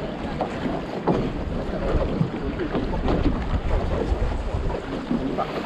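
Wind buffeting the microphone aboard a small boat on choppy sea, with the rush of water around the hull.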